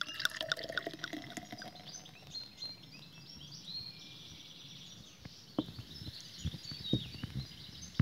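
Carbonated Radler poured from a glass bottle into a tall beer glass, gurgling at first as it fills and foams, with birds chirping throughout. A few light knocks come in the last few seconds.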